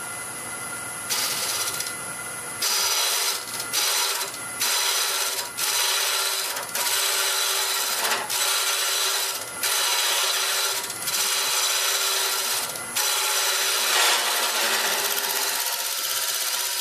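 Jamieson boring bar's cutter cutting the inside wall of a spinning mesquite hollow vessel on a wood lathe, hollowing it out. A rough scraping hiss starts about a second in and from about three seconds on comes in a string of strokes about a second each, with short dips between them.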